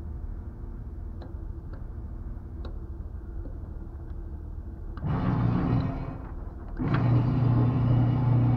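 Low steady rumble. About five seconds in, an electric target-carrier motor starts with a loud steady hum, cuts out briefly, then runs again as it moves the paper target along its overhead rail.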